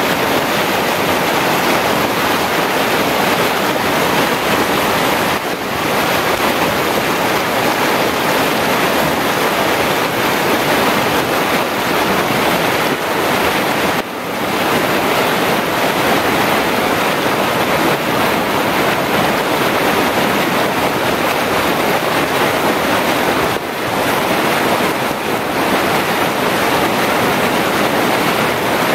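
Fast creek water rushing over rocks and small rapids, heard close up as a steady, loud rush. The rush dips briefly three times.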